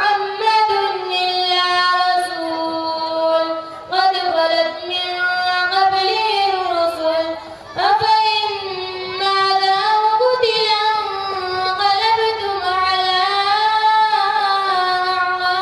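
A boy's voice chanting melodically into a microphone over a PA system, in long drawn-out phrases with a short breath about every four seconds.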